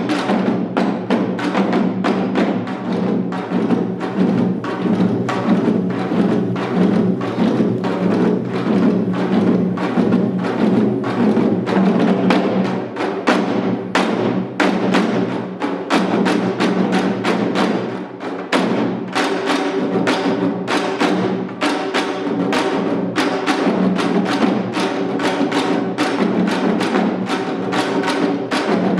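Janggu, the Korean hourglass drum, played in a seated seoljanggu piece: a fast, dense run of sharp drum strokes, many to the second, with two short lighter moments near the middle.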